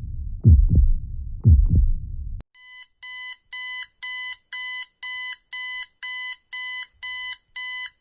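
Heartbeat sound effect: deep double thumps about once a second over a low hum. It cuts off abruptly after about two seconds and gives way to an electronic alarm beeping about twice a second.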